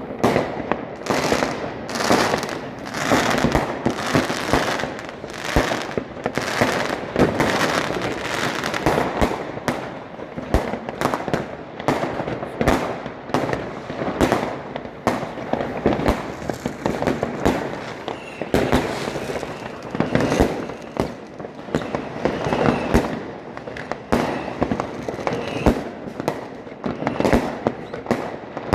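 Fireworks going off continuously: many sharp bangs and pops in quick succession, some close together and some more spaced, with no let-up.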